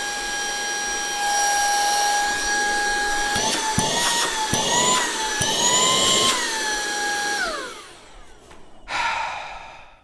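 Wyze Handheld Vacuum's motor running with a steady high whine after being switched on by holding the power button. Its pitch wavers and rises in the middle, with a few knocks, then the motor winds down about seven and a half seconds in as it is switched off, followed by a brief noisy burst.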